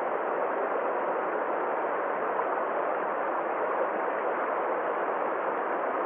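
Small stream cascading over rocks: a steady, even rush of flowing water.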